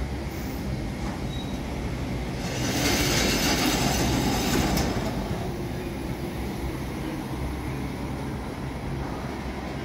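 Loaded double-deck car-carrier freight wagons rolling past close by, their wheels rumbling steadily on the rails. About three seconds in there is a louder, high-pitched hissing rush that lasts about two seconds.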